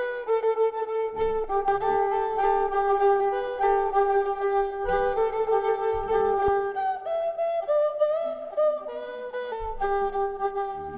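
Afro-zouk instrumental beat playing back: a sustained, fiddle-like lead holding long notes and stepping through a melody over bass and drum hits.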